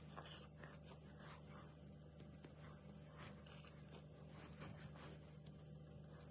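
Faint scrapes and light clicks of small parts being handled, over a low steady hum.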